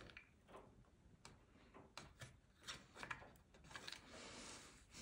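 Near silence with faint, irregular small clicks and ticks of hands pushing and prying a glued part loose inside a plastic speaker chassis, with a soft rustle near the end.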